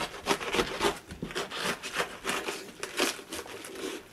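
A knife cutting down through a head of green cabbage: the tight, crisp leaves crunch and crack in a quick series of snaps, several a second.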